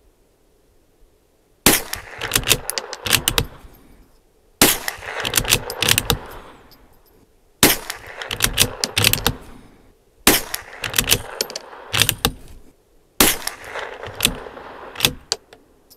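Five .22 LR rifle shots from a Bergara B14R bolt-action rimfire firing Remington Target ammunition, about three seconds apart. Each sharp report is followed by a quick run of metallic clicks as the bolt is worked to chamber the next round.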